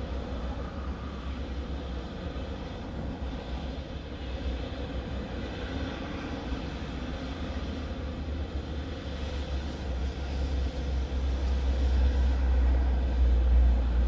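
Car idling, a steady low rumble heard from inside the cabin. A passing vehicle swells louder over the last few seconds, then drops away.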